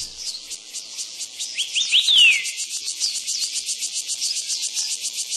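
Forest insects chirring in a fast, even pulse of about eight beats a second, with a bird calling a few quick rising notes and then one falling slur about two seconds in.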